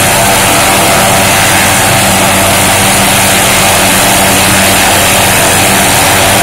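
MD 500E helicopter running on the ground: its Allison 250 turboshaft and turning main rotor make a loud, steady turbine whine and rotor noise with a few steady tones beneath.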